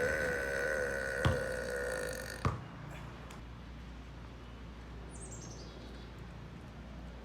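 A long human burp with a wavering pitch, ending abruptly with a thump about two and a half seconds in; a sharp click sounds partway through. A bird gives a short falling chirp about five seconds in.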